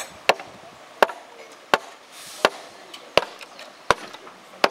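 A steady series of sharp clacks, a little under one and a half a second, as the wheels of a slow-moving narrow-gauge mine train roll over rail joints.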